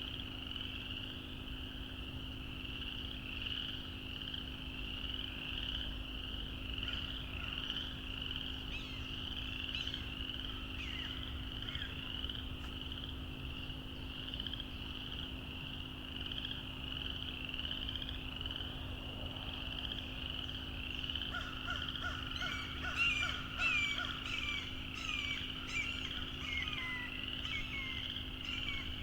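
A chorus of frogs calling steadily, a dense run of repeated high peeping notes. About two-thirds of the way through, a bird joins in with a run of quick chirps and trills.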